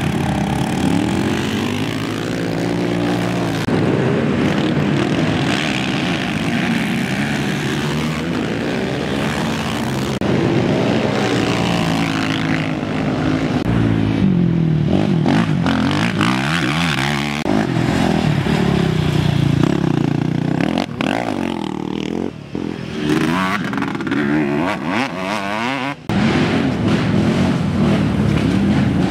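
Racing ATV engines revving hard as quads pass one after another, the pitch repeatedly climbing and dropping with throttle and gear changes.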